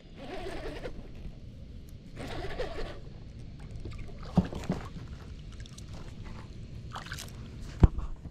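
Water sloshing and trickling around a kayak, with a few light knocks and clicks of gear being handled, the sharpest one shortly before the end.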